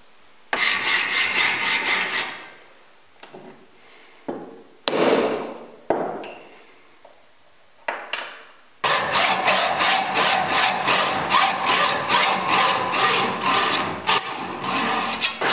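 Hacksaw cutting into a short piece of square steel tube clamped in a bench vise, in steady back-and-forth strokes through the second half. Before that, a few separate scrapes and knocks of tools and parts being handled.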